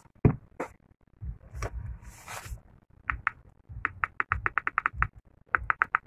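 Keypad buttons of a Jio Phone F220B clicking as they are pressed with tweezers. There are a few scattered clicks, then a fast run of about ten clicks past the middle and more near the end. The keys are being tested because the keypad is not working, with only the power key responding.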